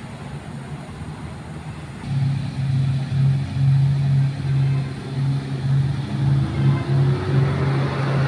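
Motor tour boat's engine running as the boat approaches on the water: a steady low hum that starts about two seconds in and stays loud, with a faint rising tone near the end.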